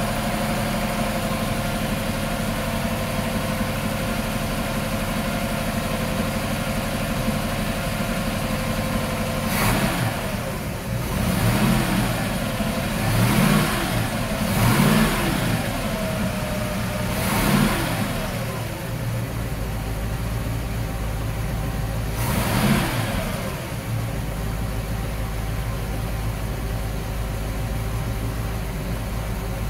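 305 cubic-inch Chevrolet small-block V8 marine engine running at a steady idle, then revved up and let fall back about half a dozen times in the middle before settling back to an even idle.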